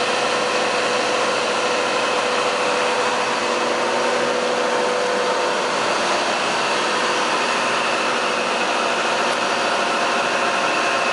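ZSF30 concrete reclaimer plant machinery running steadily: an unbroken mechanical whine of several steady tones over a wash of noise, with one of the lower tones fading about halfway through.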